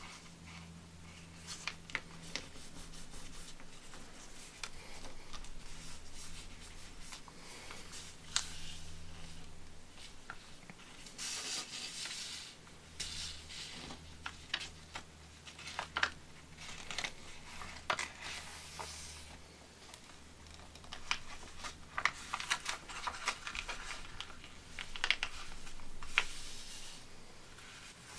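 A sheet of grid paper being folded and creased by hand on a cutting mat: paper rustling and crinkling in short bursts, with sharp ticks as folds are pressed and smoothed flat. A faint steady low hum runs underneath.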